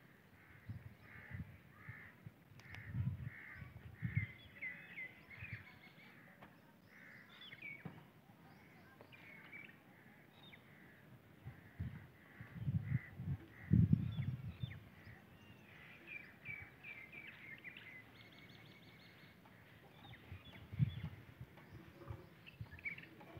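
Birds calling in the background: many short repeated calls and chirps throughout, with occasional low dull thumps, the loudest about fourteen seconds in.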